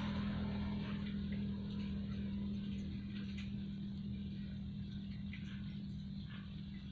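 A steady low hum that slowly fades, with faint scattered ticks over it.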